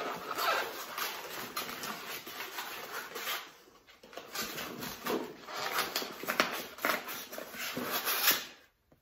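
Packing material rustling and crinkling steadily as items are unwrapped and pulled out of a parcel, with small crackles and handling knocks; it cuts off suddenly near the end.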